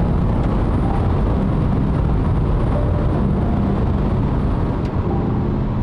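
Steady road and wind rumble of cars driving side by side at road speed, heard from inside a moving car.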